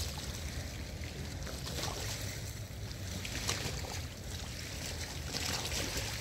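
Small lake waves lapping and splashing against shoreline rocks in an irregular rhythm, with wind rumbling on the microphone.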